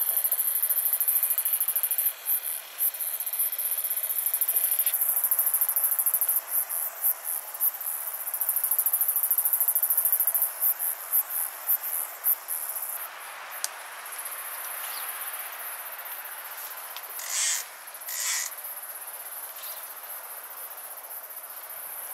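Loud, shrill chorus of insects chirring in a fast pulsing trill, strongest for the first dozen seconds and then dropping to a lower level. Two brief louder sounds come near the end.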